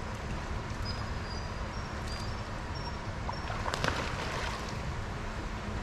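Steady low background rumble, with a splash about four seconds in as a seabird plunges into the pool, and a few faint, short high peeps earlier on.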